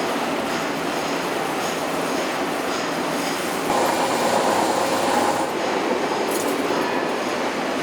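Bearing-ring factory machinery running with a dense, steady mechanical noise; a louder whining tone joins for about two seconds in the middle.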